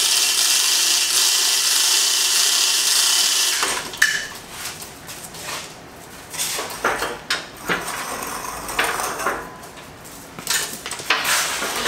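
Chain hoist on a gantry crane, its hand chain rattling steadily through the hoist for about three and a half seconds before stopping abruptly. Then a sharp click and scattered light metal clanks and knocks.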